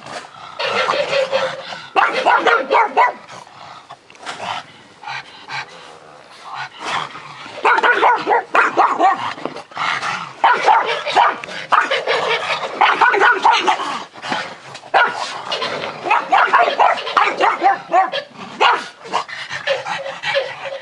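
Pugs barking and yipping in repeated bouts, with a quieter lull about four to seven seconds in.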